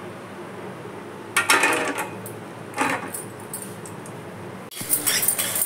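A handful of cashew nuts tipped into a stainless steel pan of melted ghee, clattering against the metal in one burst and a shorter one about a second later. Near the end comes a short hissing burst.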